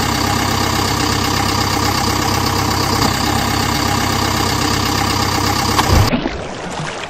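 Engine idling sound effect dubbed over a toy backhoe, a steady low running with a fast even pulse. About six seconds in it stops and a short splash-like rush takes over as the toy lands in the water.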